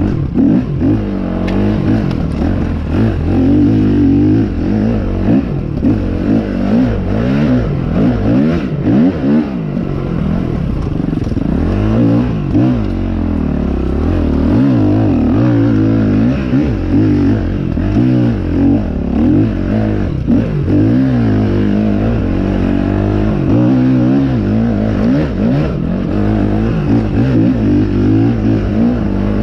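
Dirt bike engine being ridden, its pitch rising and falling constantly as the throttle is opened and closed.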